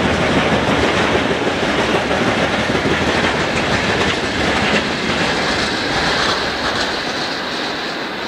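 Freight train rolling past, wagon wheels clattering over the rails with a dense rumble that slowly eases off toward the end.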